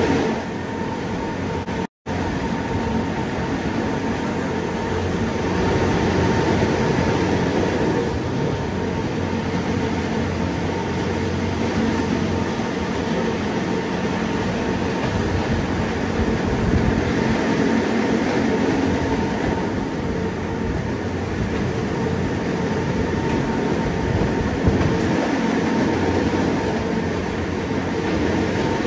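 Gornergrat electric cog railway train running, a steady rumbling ride noise with a faint steady whine over it. The sound cuts out for an instant about two seconds in.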